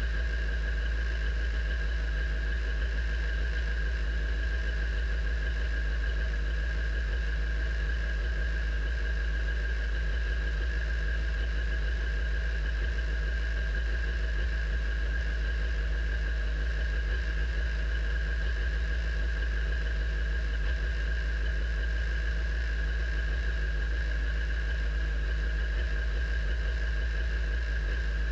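Radical sports-racing car's engine idling steadily in neutral, heard from the cockpit, a deep even rumble with a steady high-pitched whine over it that does not change.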